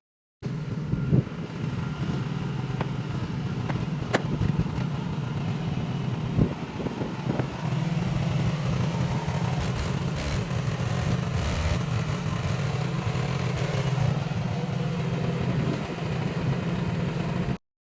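A small engine running steadily, with a few light knocks and clanks over it.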